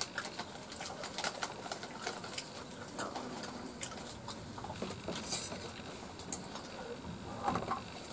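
Quiet scene of people eating by hand from plates: scattered small clicks and clinks, with a bird calling in the background.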